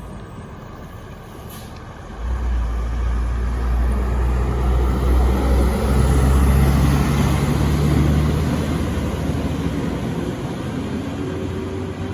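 A large intercity bus's diesel engine driving past close by: a deep rumble that swells suddenly about two seconds in, is loudest midway, then slowly fades as the bus moves away.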